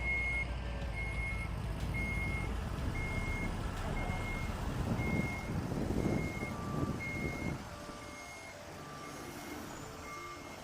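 Vehicle reversing alarms beeping about once a second, a second, lower-pitched alarm joining about six seconds in, over a rough engine rumble that fades a little after halfway.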